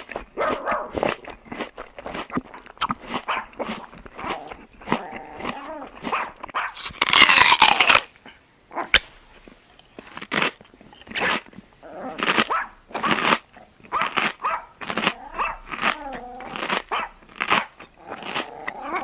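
Dogs crunching and biting into food, with growling sounds between the bites. About seven seconds in comes one loud harsh burst lasting about a second.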